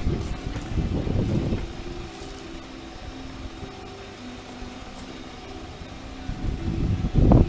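Wind buffeting the microphone in low rumbling gusts, strongest at the start and again near the end, over faint background music.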